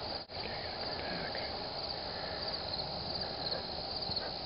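Night insects chirping, a steady high-pitched chorus of quickly repeating pulses.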